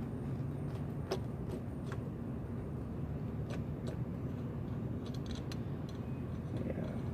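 Scattered light metal clicks and taps from a lug nut and tools being worked on a new wheel stud in the wheel hub, over a steady low rumble. The loudest click comes about a second in, and a quick run of clicks follows near five seconds.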